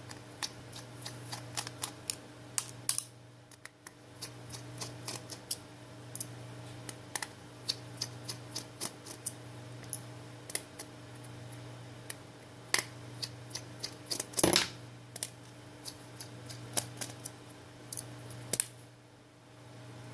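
Irregular small clicks and taps of a precision screwdriver working the screws out of a smartphone's rear frame, with a louder cluster of clicks about three-quarters of the way through. A steady low hum runs underneath.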